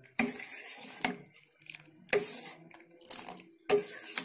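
Metal spoon stirring milk in a steel saucepan, scraping and knocking against the pan four times, about a second apart.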